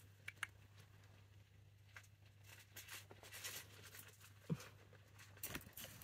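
Faint rustling of shredded paper bedding in a hamster cage, with scattered light clicks and taps and a sharper tap about four and a half seconds in.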